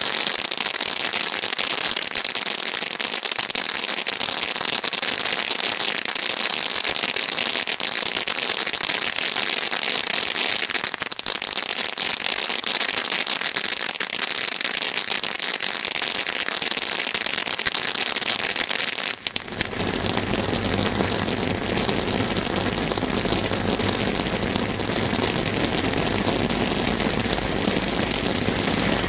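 Brothers Pyrotechnics 'Goddess of Companionship' display fountain burning with a steady, loud hiss of spraying sparks. About two-thirds of the way through the sound briefly drops, then a deep steady rumble joins the hiss.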